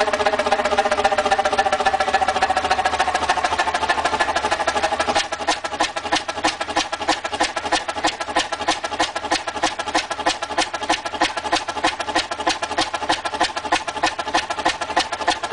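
Huge old multi-cylinder stationary engine running. A steady whine falls slightly in pitch for about five seconds, then gives way to regular, evenly spaced exhaust beats, about three a second.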